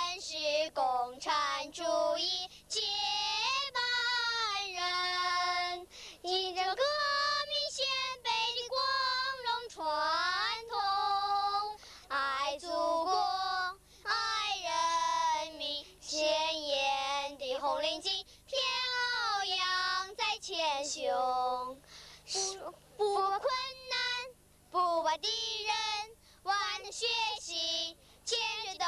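A child singing a Chinese song impromptu into a handheld microphone, voice alone with no instruments, in phrases with brief pauses between them.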